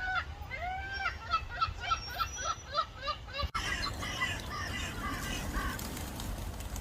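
Gull calling a series of loud, arched notes that come shorter and faster for about three seconds. After an abrupt cut, fainter gull calls follow over a steady hiss.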